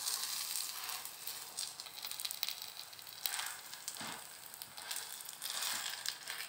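Chicken potato patties shallow-frying in a little oil in a nonstick pan, a steady sizzle with scattered crackles, while a silicone spatula shifts and turns them, adding a few scrapes and taps against the pan.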